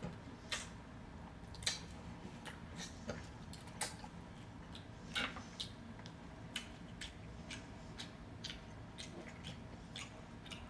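Close-up eating sounds: chewing and mouth noises with irregular sharp clicks and crackles, a few of them louder, over a faint steady low hum.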